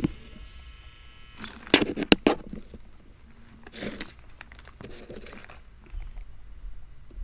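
A plastic toy packet crinkling and rustling as it is handled, in a few bursts, the loudest about two seconds in.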